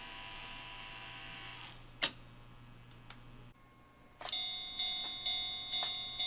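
Model railroad crossing signal's bell sounding. The ringing dies away over the first couple of seconds, with a sharp click about two seconds in. A little after four seconds the bell starts again, struck about twice a second.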